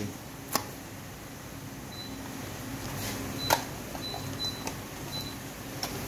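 A paperboard charger box being opened by hand and its inner card tray drawn out: soft scraping and rustling of the card, with a sharp tap about half a second in and a louder one about three and a half seconds in.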